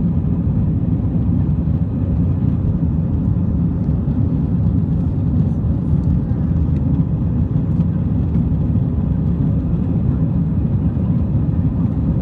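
Steady low drone of an airliner in flight, heard from inside the passenger cabin.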